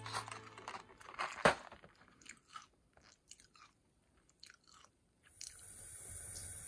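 A cat chewing and crunching treats: a run of irregular crunches, the loudest about a second and a half in, thinning out after. After about five seconds a steady hiss of water running from a bathroom faucet takes over.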